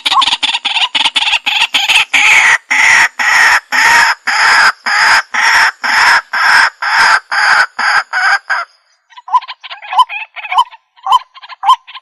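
White-breasted waterhen calling: a loud, rapid run of repeated calls about three a second that breaks off near nine seconds, then after a short pause a run of shorter, fainter notes.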